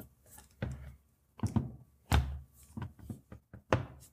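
A 16-inch MacBook Pro being handled and its lid shut: about five soft knocks and thunks with short gaps between them, the heaviest about two seconds in.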